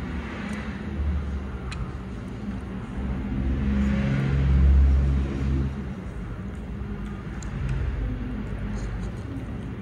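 Road traffic rumbling past outside, with a vehicle passing and swelling loudest about halfway through.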